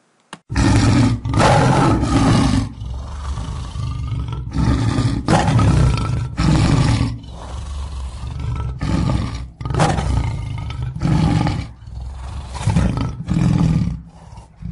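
Lion roaring: a series of loud, deep roars with short pauses between them, the later ones shorter.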